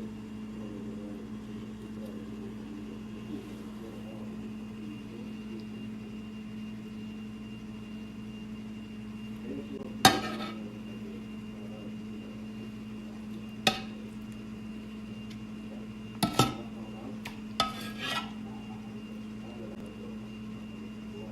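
Dishes or food containers being handled in a kitchen: about five sharp clinks and knocks, the first the loudest. A steady low appliance hum runs underneath.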